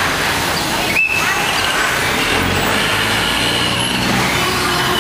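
Steady, loud running noise of a Chao Phraya river express boat's engine alongside the pier, with a brief high tone about a second in.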